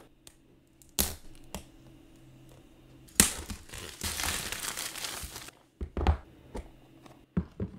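Clear plastic shrink-wrap being torn open by its pull tab and peeled off a cardboard phone box: a sharp snap about a second in, then about two seconds of crinkling and tearing plastic, followed by a few short knocks as the box is handled on the table.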